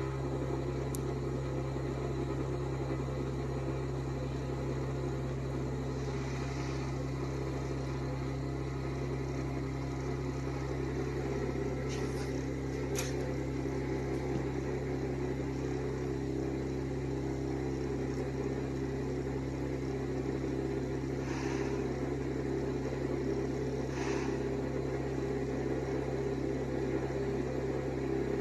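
Steady low electrical hum of a CNC hot-wire foam cutter running while its wire cuts slowly through an EPS foam block, with a few faint ticks.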